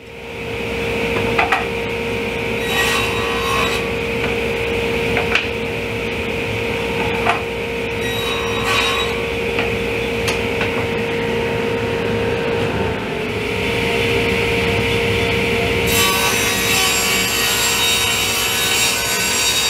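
Laguna table saw running with a steady hum, its blade making several short passes that cut dado grooves in pine drawer pieces. About three-quarters of the way through, a longer, hissier cut as a full sheet of plywood is fed through the blade.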